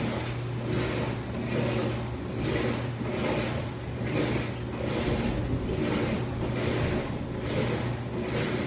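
Electrolux laundry machine running: a steady low hum with a surge of noise that swells and fades about once a second.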